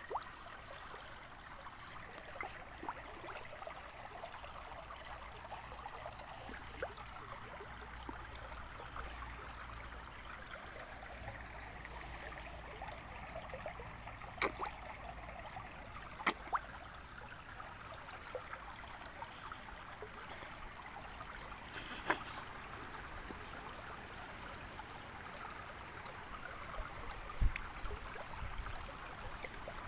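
Shallow stream trickling and gurgling steadily over stones. A few sharp clicks come about halfway through, then a short crackle, and a low thump near the end.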